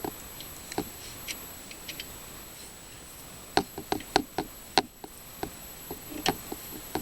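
Scattered small clicks and taps of hand tools working on a snowblower's carburetor mounting, with a quick run of clicks about three and a half to five seconds in.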